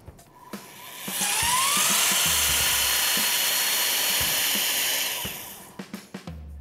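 HYTORC Lithium Series II battery-powered torque tool running as it turns a structural bolt's nut through its final 120 degrees of pretensioning. The motor whines up in pitch about a second in, runs steadily for about four seconds, then winds down, with a few light clicks before and after.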